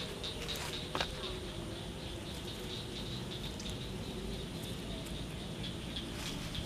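Outdoor background noise with faint, repeated high chirps from birds or insects, and a single click about a second in.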